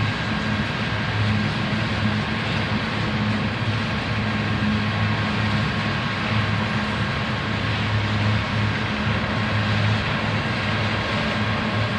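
Loaded coal hopper cars rolling steadily past on the main line: a continuous rumble of wheels on rail, with a thin steady high tone over it.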